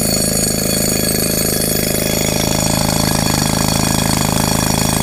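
Rock drill (hammer drill) boring holes into the rock for steel rebar dowels: a steady, rapid hammering that runs without a break.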